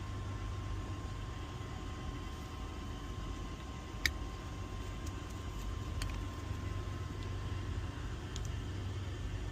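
A steady low hum like an idling vehicle engine, with one sharp click about four seconds in and a few fainter ticks after it.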